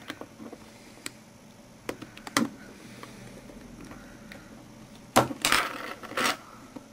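Plastic clicks and scrapes as a screwdriver prises a Nokia N73's plastic fascia away from its housing: a few sharp ticks in the first couple of seconds, then a louder run of scraping clicks about five seconds in.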